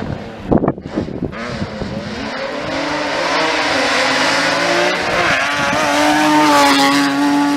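BMW E30 rally car's engine revving hard: quick rising-and-falling blips of revs in the first second or so, then a climbing, steadily louder engine note as the car comes close, held at high revs near the end.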